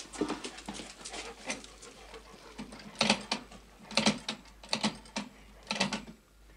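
Rotary telephone being dialled: four bursts of quick clicks about a second apart from about three seconds in, one burst per digit, after softer scattered clicks.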